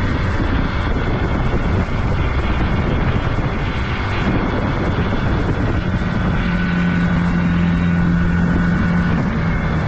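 Motorcycle running at road speed, its engine noise mixed with wind rushing over the camera microphone. About six seconds in, a steady low engine note stands out for a few seconds.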